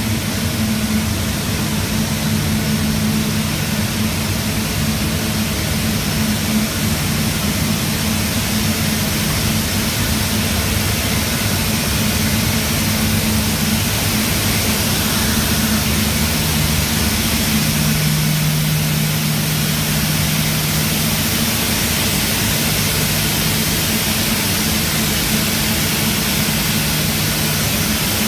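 Paper machine running at production speed, about 810 m/min, making 80 gsm paper: a steady, loud rushing noise over a low hum whose tones come and go.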